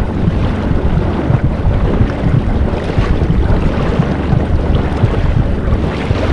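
Wind buffeting the microphone over a steady rush of water from an inflatable boat under way on the sea.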